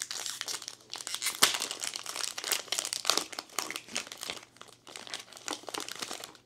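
Shiny plastic booster-pack wrapper crinkling and crackling in irregular bursts as it is worked open and the trading cards are pulled out of it; the crackling stops abruptly at the end.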